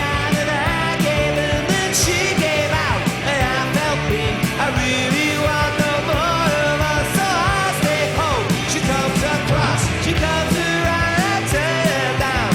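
Rock music with a sung vocal, a steady drum beat and distorted guitars.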